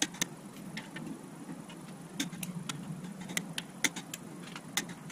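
Metal clicks from a long ratcheting wrench on engine block bolts, coming irregularly, singly and in short runs, over a steady low hum.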